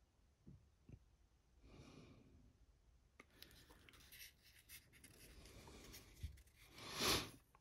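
Faint close-up handling sounds of a paintbrush working on a plastic miniature and the figure's holder being handled: a few soft taps, then quiet scratchy rubbing and small clicks. A brief louder rush of noise comes near the end, as the figure is turned in the hands.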